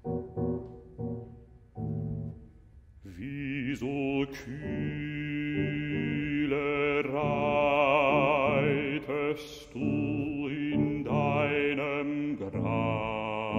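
A classical baritone singing with Bösendorfer grand piano accompaniment. A few short detached chords come first, then about three seconds in the voice enters on loud, held notes with a wide vibrato over sustained piano.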